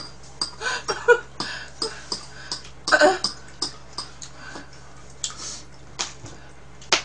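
A woman laughing in short breathy bursts for the first few seconds, with scattered light clicks of chopsticks and dishes on the table; a sharp click comes near the end.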